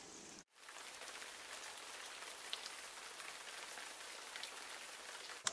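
Shallow stream water trickling over rocks: a faint, steady, even splash-hiss, after a brief cut-out about half a second in.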